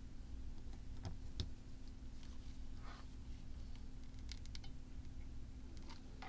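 A few light clicks and taps from hands handling small craft pieces and a mini hot glue gun on a plastic work mat, with a brief cluster of clicks about four seconds in, over a steady low hum.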